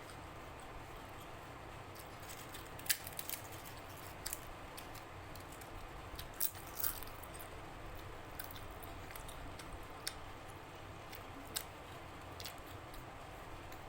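A person chewing food, with soft, wet mouth sounds and a handful of short clicks scattered through.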